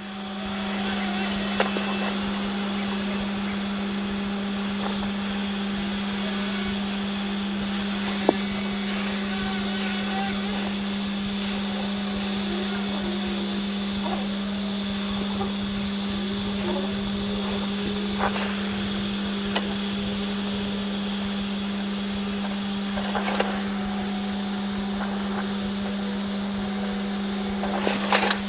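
Brazing torch running steadily, a constant hum with an even hiss, with a few faint taps and clicks as the sleeve is brazed to the thin EGR cooler.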